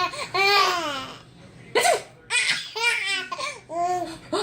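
Young child laughing in a string of high-pitched peals, each rising and falling in pitch.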